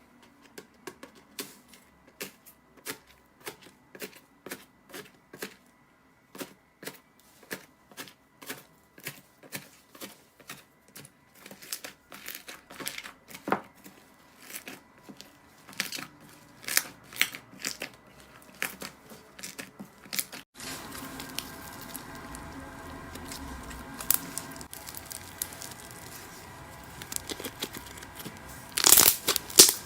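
Slime being handled, making a run of separate sharp clicks and pops, about two or three a second. About two-thirds of the way through it changes to a denser crackling texture, and a burst of loud crackles comes near the end.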